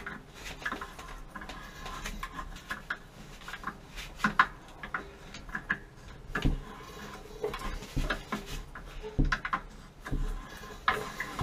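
Handheld tubing cutter turned around a copper water pipe, its wheel scoring the pipe with irregular metallic clicks and scrapes.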